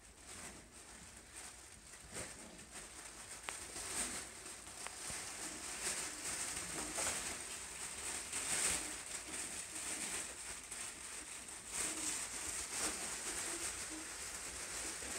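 Havanese puppies playing: soft, irregular scuffling and rustling against a fabric play tunnel and floor, with small low grunts.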